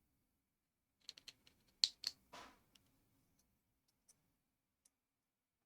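Plastic building-block pieces clicking as they are handled and pressed into place. There is a quick run of sharp clicks about a second in, the loudest two close together, then a short rustle and a couple of faint ticks.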